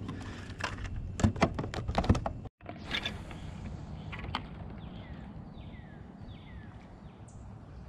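Several sharp clicks and knocks as a plastic fish measuring board and fishing rod are handled against a kayak. Then, after a cut, about four short falling whistles of a bird calling over a low steady background.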